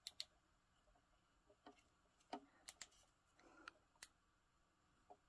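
Near silence broken by about eight faint, sharp clicks and taps at irregular intervals.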